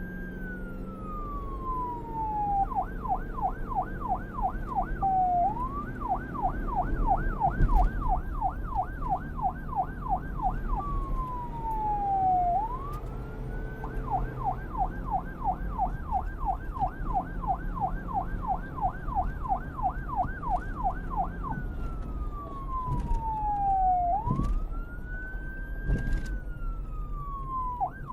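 Police car siren switching between a slow wail, falling and rising over a couple of seconds, and a fast yelp warbling about four times a second. A low rumble runs underneath, with a knock about eight seconds in.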